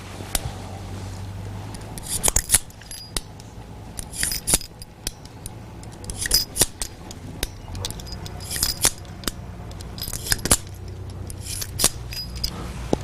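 Sharp metallic clicks and clinks of a revolver being handled, coming in short clusters about every two seconds, over a low steady hum.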